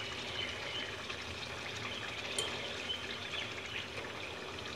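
Masala gravy being poured from a glass bowl into a frying pan of chicken in hot oil, the pan sizzling steadily with fine crackles and a couple of light clicks about halfway through.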